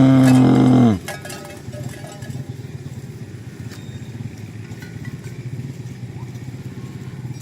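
A cow mooing, one long low call that cuts off about a second in. It is followed by a steady low rumbling noise with faint clicks.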